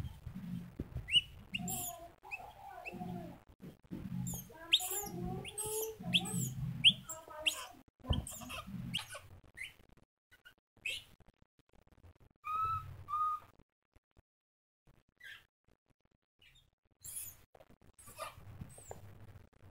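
Baby macaque giving short, high squeaks and chirps, many in the first half and two clearer squeaks past the middle, with scratchy clicks and soft bumps as it grips and climbs a plastic basket.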